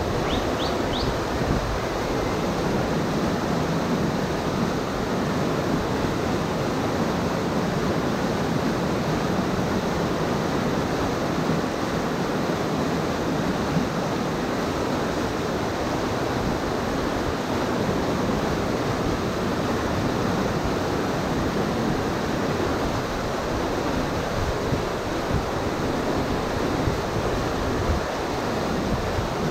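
River whitewater rushing steadily over a rocky drop, a continuous loud rush of water. A few faint high chirps come about a second in.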